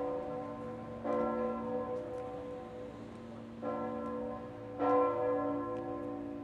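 Church bells of a sanctuary belfry ringing, four strokes of the clapper at uneven spacing of one to two and a half seconds, each tone ringing on long and overlapping the next.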